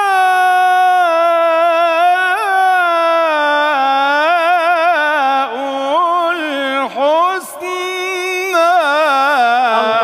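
A male Quran reciter sings tilawah in the melodic mujawwad style: one long, high melismatic phrase. The note starts held and slides slowly downward, then turns into rapid wavering ornaments, with a short dip about seven seconds in.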